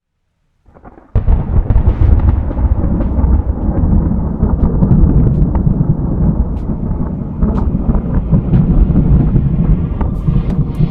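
Loud, steady low rumble of wind and propeller wash buffeting an FPV quadcopter's onboard camera microphone, with scattered sharp clicks. It starts suddenly about a second in.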